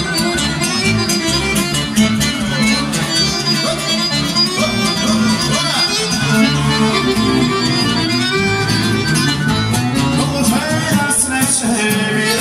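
Live instrumental music with no singing: piano accordion and nylon-string classical guitar playing a lively traditional tune together, the guitar strummed in a steady rhythm.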